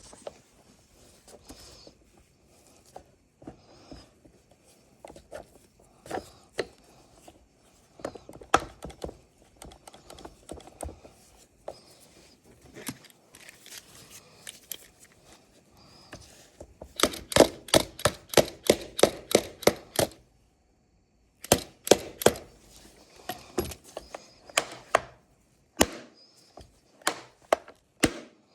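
Sharp knocks and taps of hand work on chainsaw parts: scattered taps at first, then a fast run of loud knocks, about five a second, for roughly three seconds a little past the middle, then more spaced knocks.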